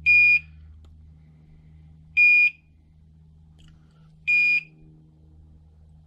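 TOPTES CT-580 portable carbon monoxide detector sounding its alarm: three short high-pitched beeps about two seconds apart, warning of elevated carbon monoxide with the reading in the yellow band below 200.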